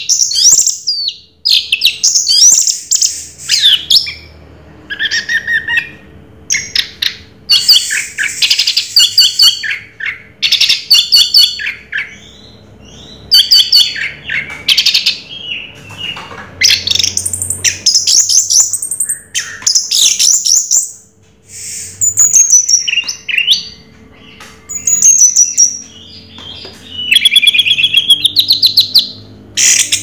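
Orange-headed thrush singing: bouts of quick, varied high-pitched phrases with rapid notes and sliding whistles, each a second or two long, broken by short pauses.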